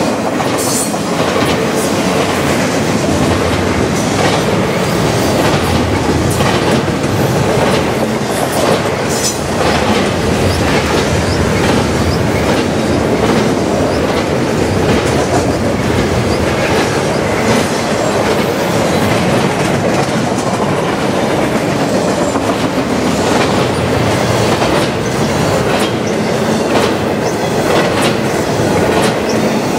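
Double-stack intermodal container train's well cars rolling past close by: a steady, loud rush of steel wheels on rail with frequent clicks as the wheel sets pass.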